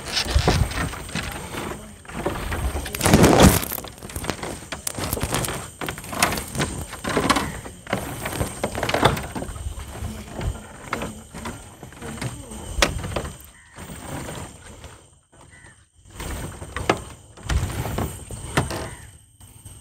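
Footsteps on the loose wooden planks of a jetty and raft: irregular thuds and knocks, the loudest about three seconds in.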